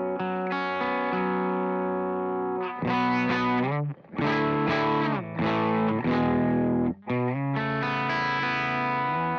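Electric guitar played through effects with distortion and chorus, letting long chords ring. The chords change after a few short breaks about three, four and seven seconds in.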